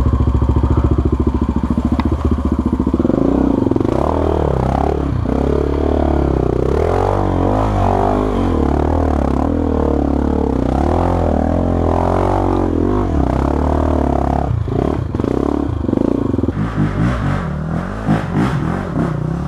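Honda XR 250 Tornado's single-cylinder four-stroke engine pulling under load on a rough trail, revs rising and falling with the throttle, with the bike clattering over rocks and ruts.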